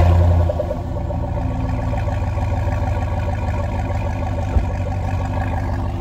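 Chevrolet Trailblazer SS's 6.0-litre LS2 V8 just started, running through an aftermarket exhaust: the idle is high and loud for the first second, then settles into a steady idle.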